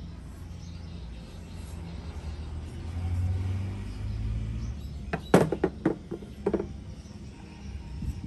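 A steady low rumble that swells around three seconds in, then a quick run of about six sharp knocks a little past the middle, the first of them the loudest.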